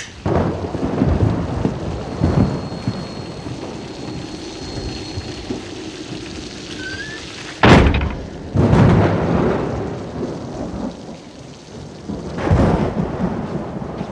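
Heavy rain pouring steadily, with thunder: a sudden sharp crack a little past halfway, then a long rumble, and another loud peal of thunder near the end.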